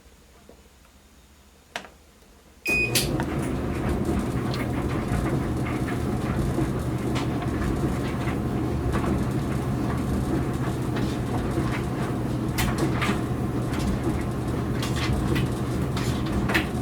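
Maytag Duet front-loading dryer starting about two and a half seconds in with a short beep, then running steadily: motor and turning drum with occasional light clicks. There is no squeal or grinding, because the stuck idler pulley's shaft has been freshly oiled.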